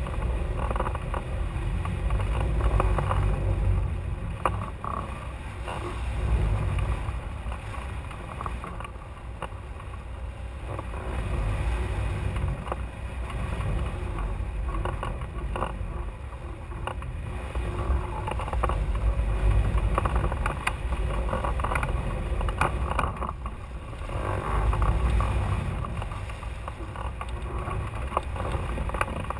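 Airflow rushing over the microphone of a camera mounted on a hang glider in flight. It makes a deep, buffeting rumble that swells and fades every few seconds.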